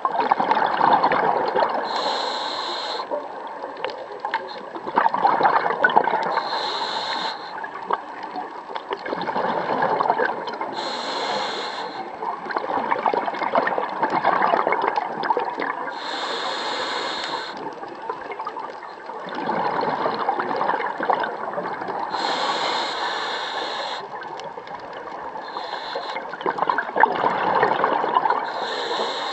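Scuba regulator breathing recorded underwater: a short hissing inhalation every five seconds or so, each followed by a longer exhalation of gurgling, bubbling air.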